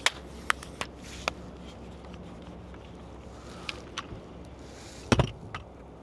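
Scattered sharp clicks and knocks over a steady low rumble, the loudest a short cluster of knocks about five seconds in.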